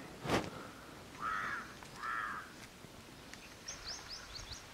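A crow cawing twice, harsh calls about half a second each, with a small bird chirping rapidly near the end. A short sharp rustle just after the start is the loudest sound.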